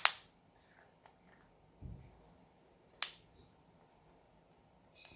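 A few sharp plastic clicks from tools and phone parts being handled during smartphone disassembly: one at the start, one about three seconds in, and a soft low knock just before two seconds.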